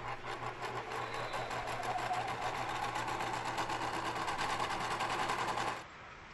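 Sewing machine stitching at speed, a fast even rattle over a steady low hum, which cuts off abruptly near the end.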